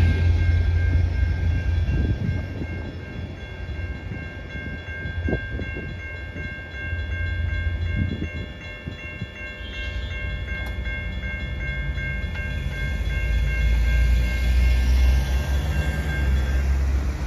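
Railroad crossing warning bell ringing in a quick, even repeat over a low rumble, while the gates are down; it stops shortly before the end as the gates rise, and a car passes near the end.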